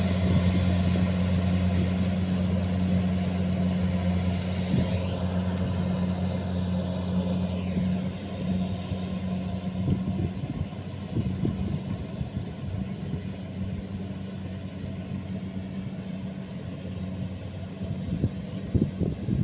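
Kubota combine harvester's diesel engine running steadily under load while cutting rice, a constant low hum that grows quieter after about eight seconds as the machine moves away.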